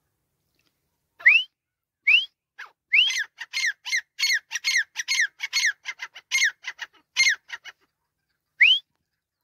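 Grey francolin calling: three separate sharp rising whistles, then a fast run of repeated ringing calls lasting several seconds, and one more rising whistle near the end.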